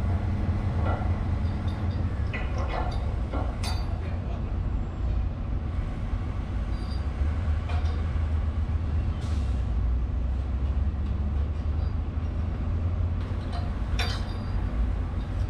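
Excavator's diesel engine running steadily with a low rumble, with a few sharp clicks or knocks, the clearest about four seconds in and near the end.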